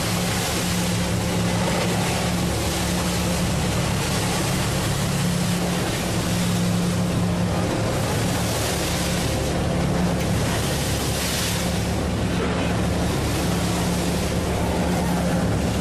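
Pilot boat's engines running steadily, a low drone under a constant rush of wind and water noise.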